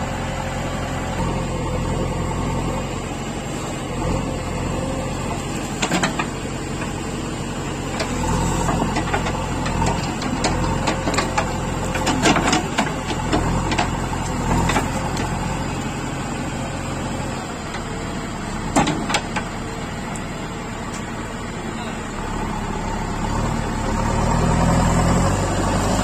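Heavy diesel machinery engines running steadily, with scattered sharp metallic clanks and knocks through the middle. Near the end the engine note shifts and grows louder.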